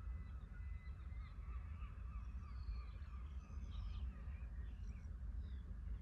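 Several birds calling faintly: scattered short chirps and a wavering call throughout, over a steady low rumble.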